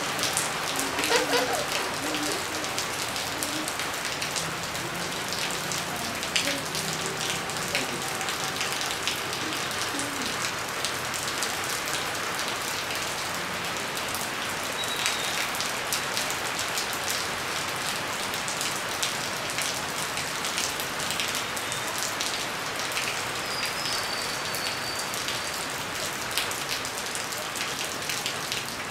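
Steady rain falling on a wet concrete roof terrace and its puddles, a continuous hiss dotted with the ticks of individual drops. A couple of faint short high chirps sound around the middle and later on.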